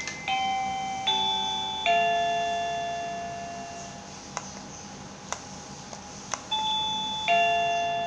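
ZEHN ZN-903Y wireless doorbell playing an electronic chime melody. Three bell-like notes come in quick succession near the start, each ringing on and slowly fading. Three sharp clicks fall in the fading stretch, then two more notes sound near the end.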